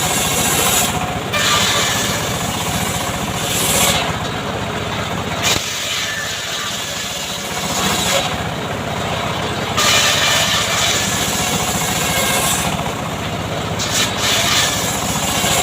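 Homemade chainsaw engine running steadily, speeding up and dropping back several times.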